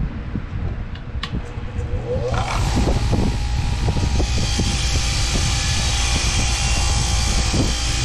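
Electric wire wheel motor starting and spinning up about two seconds in, then running steadily with a loud, hissing scrub as the wire brush cleans rust off an old steel pipe wrench.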